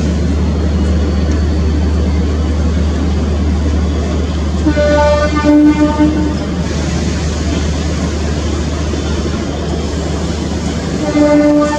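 WDM3A diesel locomotive's ALCO 16-cylinder engine running with a steady low rumble as it hauls the train slowly in. Its air horn sounds twice: a broken blast of about two seconds roughly five seconds in, and another near the end.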